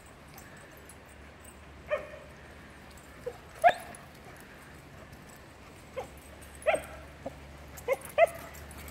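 A dog giving short, sharp, high barks, about eight of them at irregular intervals, the loudest a little before four seconds in.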